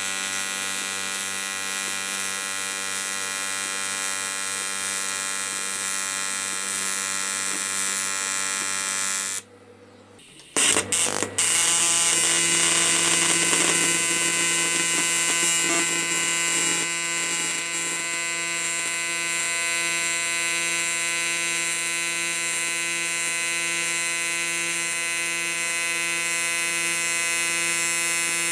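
AC TIG arc from an R-Tech 261 AC/DC inverter welder buzzing steadily as it runs a bead on aluminium plate on the easy-set mode. About nine seconds in, the arc stops; after about a second it is struck again with a couple of brief starts. It then buzzes on at a different pitch for the second bead, set to 140 Hz AC frequency with 32% balance.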